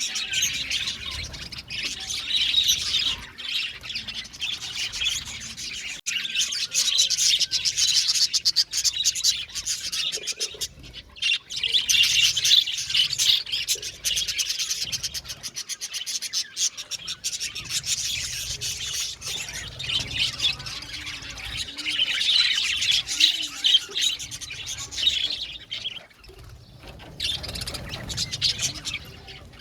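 A flock of budgerigars chirping and chattering continuously, a dense mass of rapid overlapping calls, thinning out near the end.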